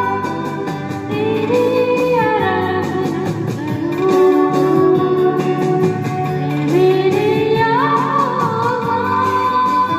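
Amplified singing through a microphone and a small PA speaker, with long held notes that slide up and down between pitches, over instrumental accompaniment.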